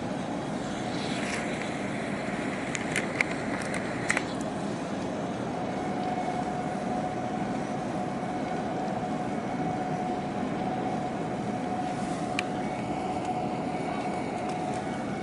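Steady low engine rumble of harbour vessels, with a faint steady hum joining about six seconds in. A few sharp pops come around three to four seconds in and once near the end.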